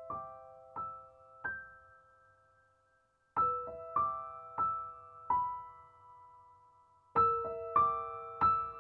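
Soft background piano music: short phrases of a few struck notes, each note ringing out and fading, with a quiet lull between the phrases.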